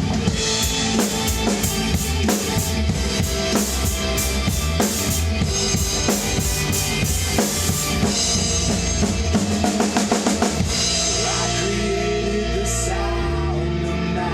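A rock drum kit played hard along to a rock track, with busy bass drum, snare and crashing cymbal hits. About two-thirds of the way in the drumming stops, and the track's sustained guitar and bass carry on alone.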